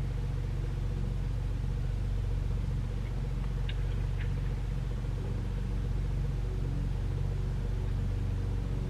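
A steady low droning rumble, with a few faint clicks about three and a half to four seconds in.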